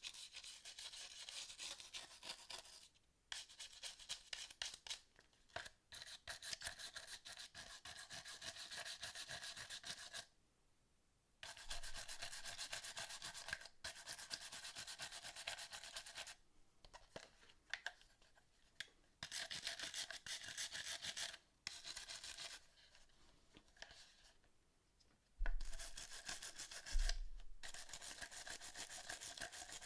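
A brush scrubbing the plastic parts of a PS4 controller in rapid back-and-forth strokes, in bouts with short pauses. Near the end there are two knocks, a second or so apart.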